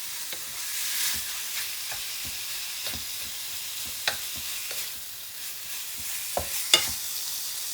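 Marinated meat sizzling in a hot frying pan as it is stirred, with scattered taps of the utensil against the pan and two sharper clacks, about four seconds in and near the end.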